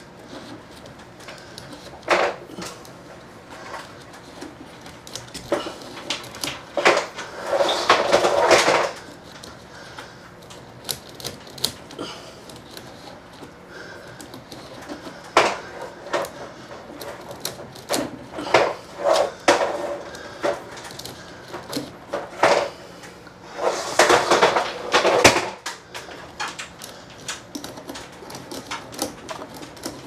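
Nylon fish tape being pushed by hand into a conduit, with irregular scrapes and clicks and two longer scraping stretches of a second or two, one about a quarter of the way in and one near the end. The tape is meeting resistance in the pipe, which he takes to be a piece of foam stuck inside.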